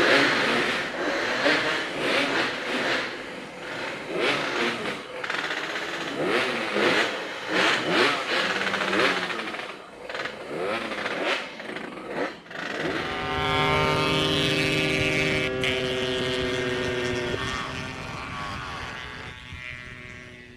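Yamaha RX-King two-stroke single-cylinder motorcycle engine revved again and again, its pitch sweeping up and down. About two-thirds of the way through it holds a steady note for a few seconds, then drops away.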